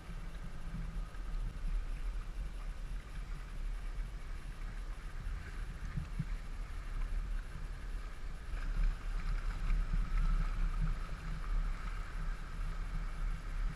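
Outboard motors of rigid inflatable boats running as they pass at low speed, over a low wind rumble on the microphone. The engine sound swells about two-thirds of the way through as one boat passes close.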